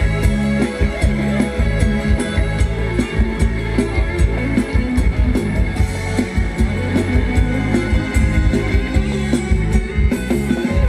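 Live band playing Thai ramwong dance music, with guitar and drums keeping a steady beat.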